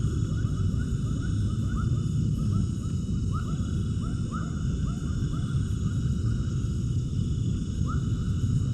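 Outdoor animal sounds: many short rising chirps repeating over a steady low rumble, with faint steady high-pitched tones above.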